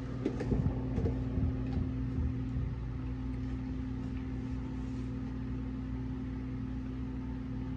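A steady low hum, with a few light knocks and clicks in the first couple of seconds.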